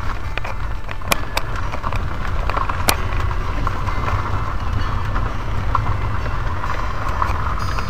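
Car driving on an unpaved gravel road, heard inside the cabin: a steady low rumble of tyres and running gear, with scattered sharp clicks and rattles.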